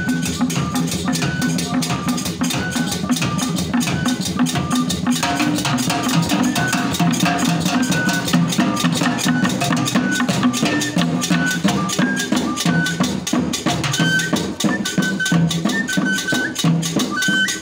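Live traditional drum ensemble playing a steady rhythm of quick strokes: drums with sharp wooden clicks and short repeated high notes over them.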